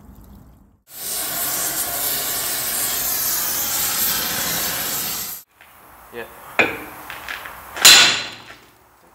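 Gas cutting torch hissing steadily for about four seconds as it heats a bulldozer track link around the seized master pin. This stops abruptly and is followed by a few sharp metal strikes of a hammer on a drift bar knocking at the master pin, the loudest near the end.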